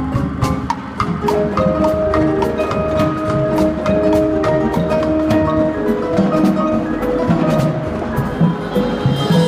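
Indoor percussion ensemble playing: mallet keyboards such as marimba and vibraphone hold chords that change about once a second, over a steady pattern of sharp drum and stick strikes.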